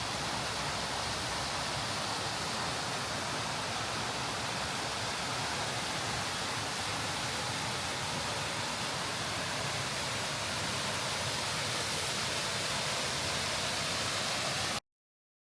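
Steady rush of a waterfall, Bucktail Falls' water cascading over shale. It cuts off abruptly near the end.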